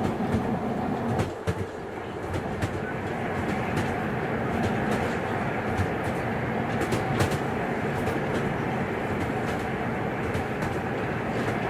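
Steady rumble of a moving train heard from inside a passenger carriage, with scattered light clicks and rattles throughout.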